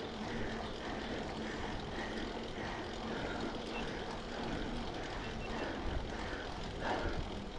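Steady rushing wind and tyre noise from a gravel bike rolling along, with a faint steady hum that fades out about two-thirds of the way through.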